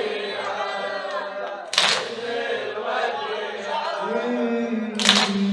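Group of men chanting a Shia mourning latmiyya in unison, with two loud sharp slaps of collective chest-beating, about two seconds in and again near the end.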